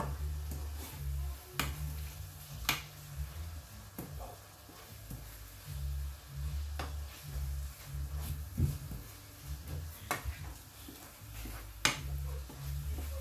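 Wooden spoon stirring minced beef in a frying pan, with several sharp clicks as the spoon knocks against the pan. A low, pulsing bass line of background music runs underneath.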